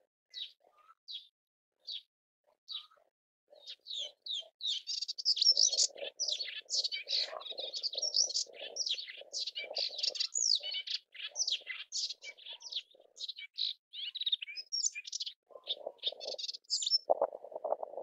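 Melodious warbler singing: a few single high notes about a second apart, then from about four seconds in a fast, rambling, chattering song of varied notes that runs until near the end. A lower, rougher sound comes in under it in the last couple of seconds.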